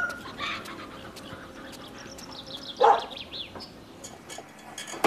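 A dog barks once, short and loud, about three seconds in, while small birds chirp faintly. A second short, sharp sound comes at the very end.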